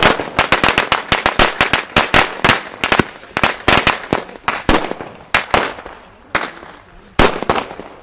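Firecrackers going off on the ground in a rapid, irregular string of sharp bangs, several a second, thinning out about five seconds in; after a short pause a few more loud bangs near the end.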